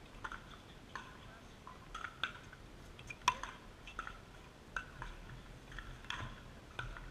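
Pickleball rally: a composite paddle striking the hard plastic ball, a string of sharp, irregularly spaced pops, the loudest about three seconds in.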